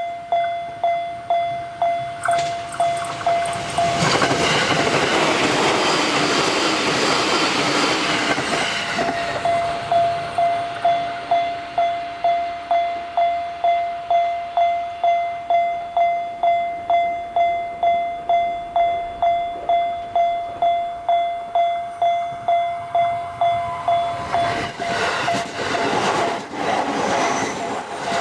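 Japanese level-crossing warning bell ringing its steady "kan-kan" at about one and a half strikes a second. A few seconds in, a JR Sobu Line train passes over the crossing, and its rumble and wheel noise swamp the bell until about nine seconds in. Near the end a second train starts to pass.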